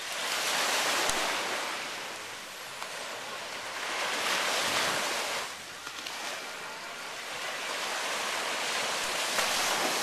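Small surf breaking on a sandy beach, the wash of the waves swelling and fading three times.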